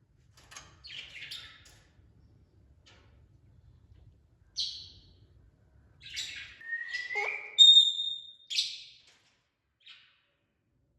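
Parrots giving short, scattered chirps and squawks, with a rising whistle about seven seconds in that ends in a short steady whistled note.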